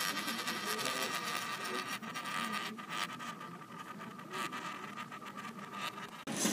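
A ring spinning on a hard tabletop, giving a steady scratchy whirr with fine rapid ticks. It cuts off suddenly near the end.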